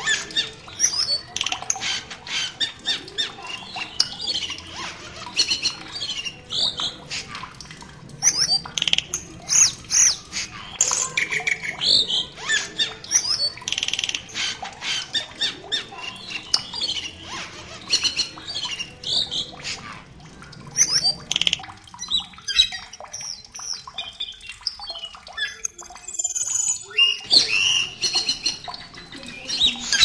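Asian glossy starling calls: a busy run of short squawks, sweeping whistles and clicks, several a second. The calls thin out for a few seconds about three-quarters of the way through, then pick up again.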